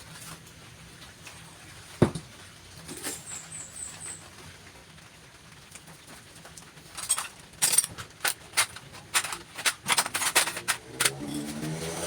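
Metal parts and tools clinking and knocking: a single sharp knock about two seconds in, then a quick run of clicks and clinks through the second half.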